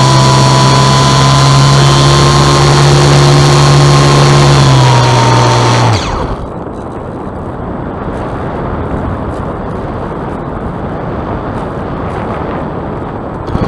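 Piper Cub's propeller motor running steadily with a whine, then dropping in pitch and cutting out about six seconds in as the propeller stops. After that only airflow rushes over the microphone as the plane glides.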